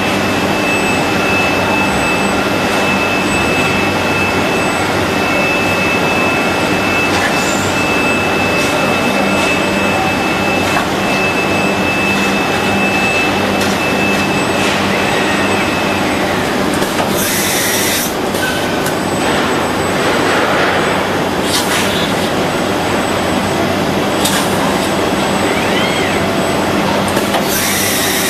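Steady machine noise from a six-axis robot cell cutting and finishing a car dashboard: a constant hum with a high steady whine that stops about halfway. Two loud hissing blasts, each about a second long, come just past halfway and again near the end.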